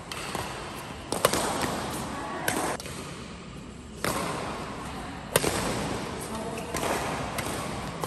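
Badminton rackets striking a shuttlecock during a doubles rally: three sharp hits spread over several seconds, echoing in a large hall.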